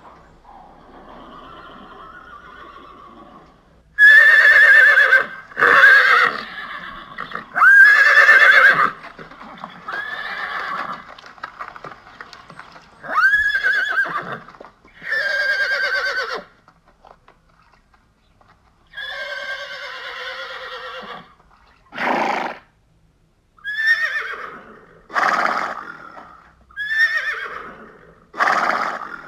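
Horses neighing and whinnying over and over. About a dozen loud separate calls begin about four seconds in, some long and wavering, others short.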